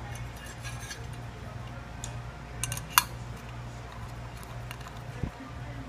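Small metallic clicks of a nut being turned by hand onto the clapper bolt of a sheet-steel fishing bell. About three seconds in there is one sharp metallic ping from the bell, and near the end a dull thump. A steady low hum runs underneath.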